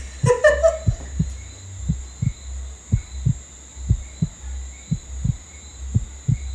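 Heartbeat sound effect: a low double thump, lub-dub, repeating about once a second, over a faint steady high-pitched hum.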